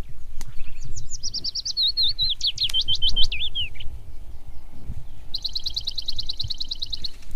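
Songbirds singing in forest: first a fast twittering phrase that slides downward, then, a couple of seconds later, a rapid even trill of quick high notes. A low steady rumble runs underneath.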